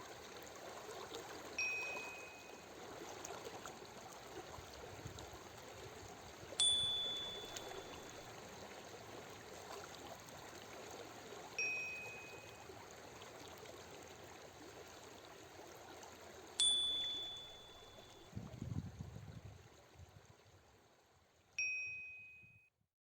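Short chime tones ringing every five seconds, alternating between a lower and a higher note, marking each switch between a five-second inhale and a five-second exhale. Beneath them runs a steady sound of flowing water, which fades out near the end.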